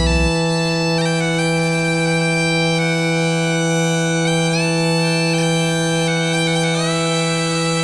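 Closing passage of a folk-metal song: a bagpipe holds a steady drone under a slow, stepping melody. The band's heavy low end cuts off just after it begins, leaving the pipe alone.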